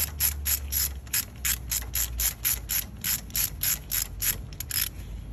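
Hand ratchet clicking rapidly and evenly, about five clicks a second, while a spark plug is turned on a socket and extension. The clicks stop shortly before the end.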